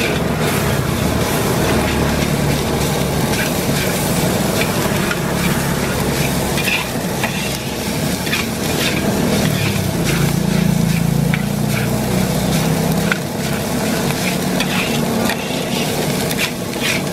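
Fried rice being stir-fried in a wok: it sizzles steadily while a metal spatula scrapes and knocks against the wok many times. A steady low rumble runs underneath.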